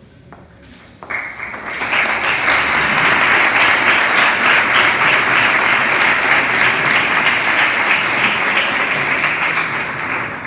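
A congregation applauding. The applause starts about a second in, swells quickly to a steady, loud clapping, and fades away at the very end.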